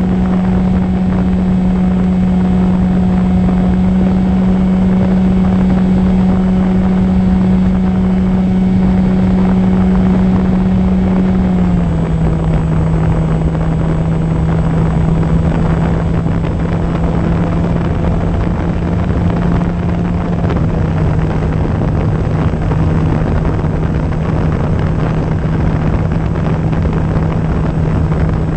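Electric motor and pusher propeller of an E-flite Opterra flying wing droning steadily in flight, with wind rushing over the onboard microphone. About twelve seconds in the pitch drops a step as the motor slows.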